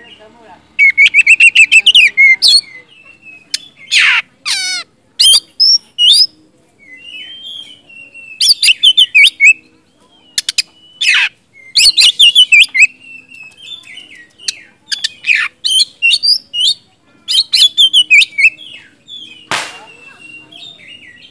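Male Oriental magpie-robin singing loudly in separate phrases: clear whistled notes mixed with fast rattling runs of repeated notes, with short pauses between phrases.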